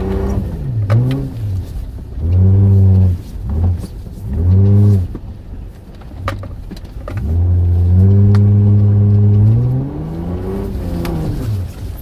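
Toyota Land Cruiser engine revving up and down in repeated swells, heard from inside the cab. The pitch rises and falls about five times, and the longest stretch is held high for about two seconds partway through. A few sharp clicks are heard between the swells.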